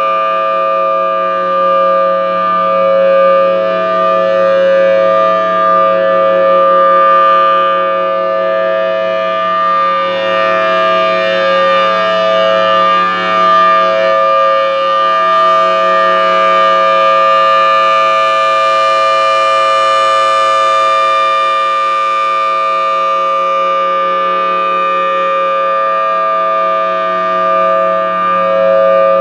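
Federal Signal Thunderbolt 1000T dual-tone warning siren sounding its steady alert signal: a loud held two-note chord at constant pitch that swells and fades slowly as the rotating siren head sweeps around.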